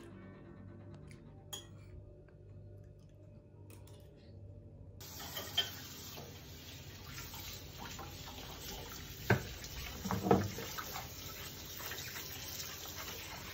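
Faint background music at first, then, about a third of the way in, a kitchen tap starts running steadily into the sink as plates are washed by hand. A few sharp clinks of dishes come in the second half.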